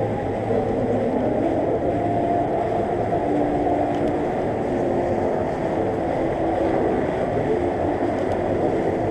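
Steady hubbub of a busy city square: a mix of distant voices and traffic rumble, with no single sound standing out.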